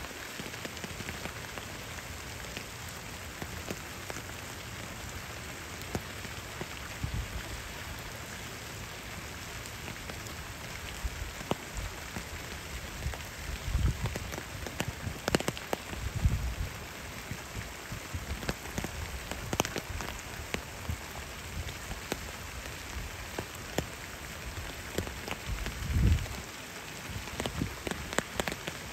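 Rain falling on a pond: a steady hiss with scattered drop ticks. A few low rumbles come and go around the middle and near the end.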